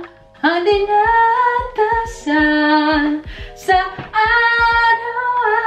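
A woman singing unaccompanied, in long held notes with short breaks between phrases.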